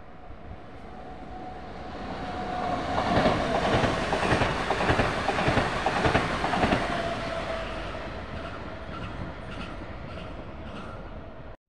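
Bayerische Regiobahn (BRB) regional passenger train passing on the tracks: it grows louder as it approaches, its wheels clatter over the rail joints loudest in the middle, with a steady whine, then it fades as it pulls away.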